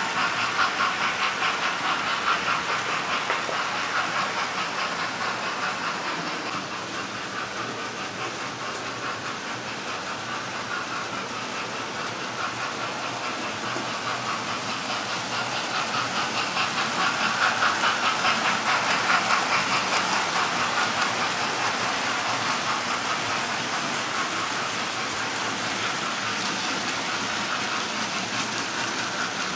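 Several electric model railway trains running on the layout at once: a steady whir of small motors and wheels with a rapid clicking on the track, getting louder for a few seconds about halfway through.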